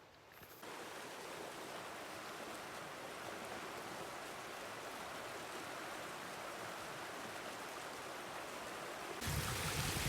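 Creek water running steadily, a constant even rush that starts abruptly about half a second in. Near the end, a louder low rumble comes in on top.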